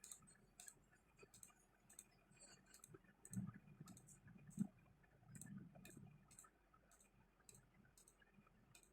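Near silence with faint, light clicks at a fairly even pace of about two a second, and a few soft low knocks around the middle.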